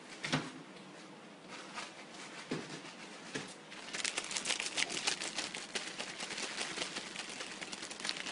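Young puppies' paws and claws scratching and pattering on a towel in a plastic kiddie pool as they play-wrestle, a few scattered scrapes at first, then a busy run of rapid scratching from about halfway through.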